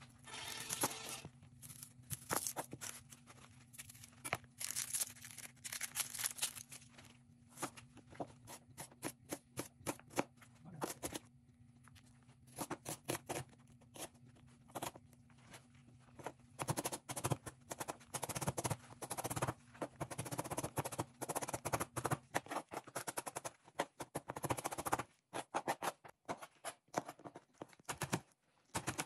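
Chef's knife chopping a red onion on a plastic cutting board: quick runs of sharp knife strikes on the board with crunching through the onion, in bursts with short pauses. Near the end the knife chops green chillies.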